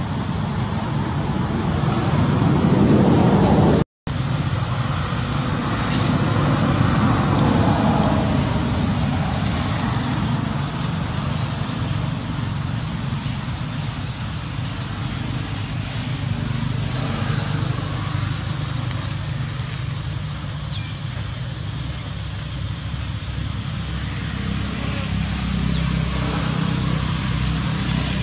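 Steady outdoor background noise: a low rumble under a constant high-pitched hiss, broken by a momentary dropout about four seconds in.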